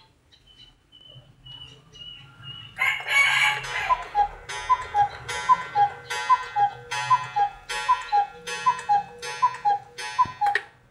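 Mechanical cuckoo clock striking the hour. Its works whir into motion nearly three seconds in, then its bellows pipes sound the falling two-note cuckoo call about a dozen times in a steady rhythm, each call with a breathy hiss.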